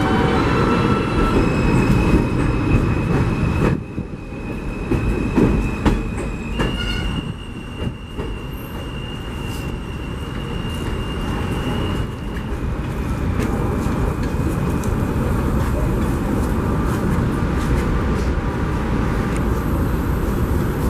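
Subway train running on elevated track, its wheels squealing in long, high, steady tones that shift pitch a few times over a continuous rumble. A few clacks over the rail joints come in the first half.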